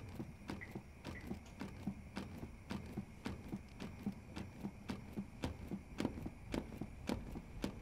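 Steady rhythm of clicks from a CPR training manikin's chest under continuous chest compressions, a few clicks a second. A faint steady high tone sounds beneath.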